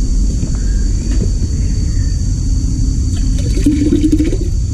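Small electric pressure-washer pump running steadily with a low rumble, and its jet of water spraying onto an air conditioner's indoor coil near the end.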